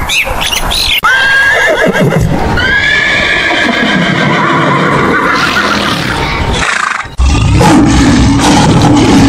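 Horse whinnying, a long neigh of several seconds, preceded in the first second by a European starling's whistles. About seven seconds in, after a short break, a lion's deep roar starts, the loudest sound.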